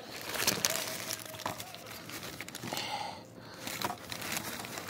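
Paper fast-food sandwich wrapper crinkling and rustling as it is handled, with irregular sharp crackles.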